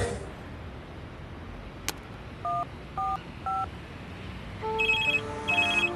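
A sharp click, then three short keypad beeps about half a second apart as a number is dialed on a white flip mobile phone. Near the end a phone rings: a louder melodic ringtone with a high trill in two bursts.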